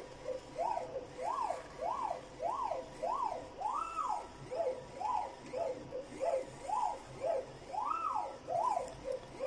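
Stepper motors of a vertical plotter driving the laser engraving head from line to line: a whine that rises and falls in pitch with each short move, about two moves a second, some sweeps longer and higher than others. A faint steady tone runs underneath.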